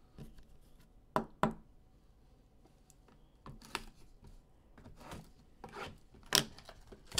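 A shrink-wrapped trading-card box being handled on a table while its wrap is cut open: scattered taps and clicks, with two sharp knocks just over a second in and the loudest tap about six and a half seconds in.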